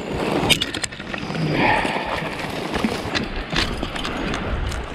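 Someone wading through flooded tag alder brush: branches rustling and twigs snapping in irregular sharp cracks, with water moving around the legs.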